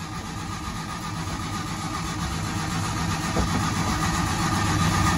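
1960 Fiat Millecento's four-cylinder engine being started after its fuel system was primed. The sound grows steadily louder.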